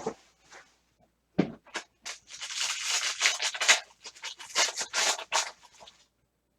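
Foil card-pack wrapper crinkling and tearing as the pack is opened, in irregular crackly bursts after a light knock about a second in.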